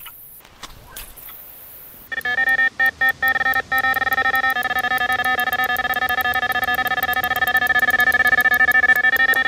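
Electronic carp bite alarm sounding a run: rapid, broken beeping about two seconds in that settles into an almost unbroken loud tone as a carp takes line.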